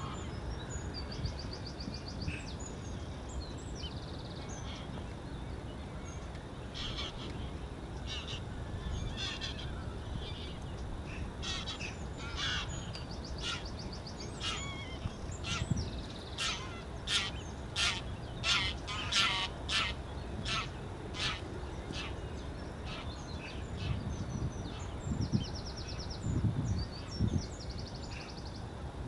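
Greylag geese honking in flight: a run of short calls that grows denser and louder in the middle, about two a second, then fades away. A steady low rumble runs underneath, and a small bird's high trill sounds near the start and near the end.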